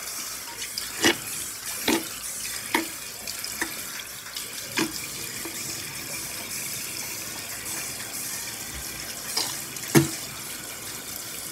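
Bathroom sink tap running steadily into the basin, with about seven brief sharp sounds over it, the loudest about ten seconds in.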